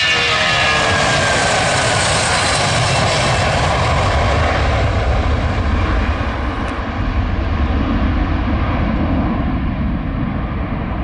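Boeing 757's twin jet engines at takeoff power as the airliner lifts off and climbs away: a loud roar with a deep rumble and a whine falling in pitch over the first couple of seconds. From about six seconds in the higher part of the roar fades as the jet draws away.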